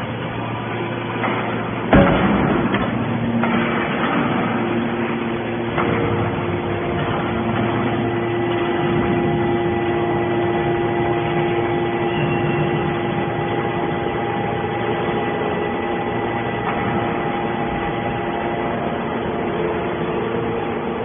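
Hydraulic scrap-metal baler running with a steady machine hum that carries several held tones, broken about two seconds in by a loud metal bang and by a lighter clank about four seconds later.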